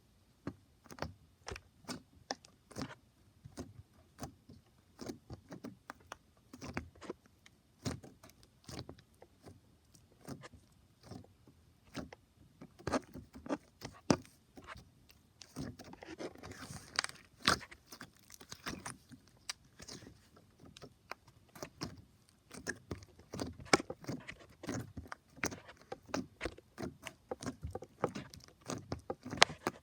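Crunchy slime being squeezed and pressed by hand, giving an irregular stream of sharp crackles and pops, busiest about halfway through.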